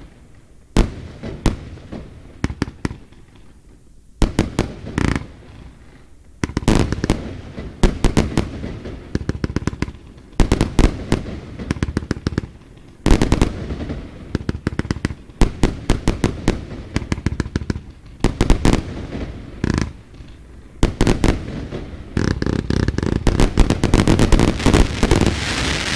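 F2 compound firework cake (Verbundfeuerwerk) firing: volleys of sharp shots and bursts come in clusters every second or two, then build near the end into a dense, near-continuous barrage of shots and crackle.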